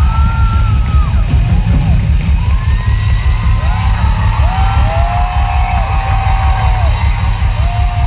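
Live concert music with a heavy, dense bass beat over the PA, and long rising-and-falling whoops and yells from voices on top of it.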